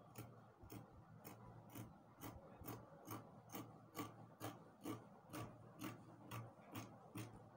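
Fabric scissors cutting through cloth along a curved line, a steady run of faint snips about two a second.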